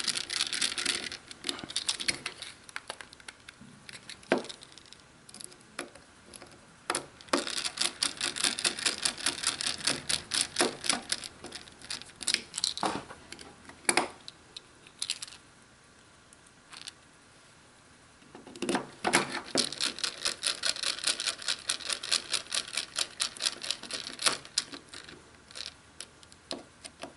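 Small screwdriver driving screws back into the plastic battery cover of a wireless hitch camera, fastening the gasketed cover: runs of rapid small clicks and scrapes, with a pause partway through.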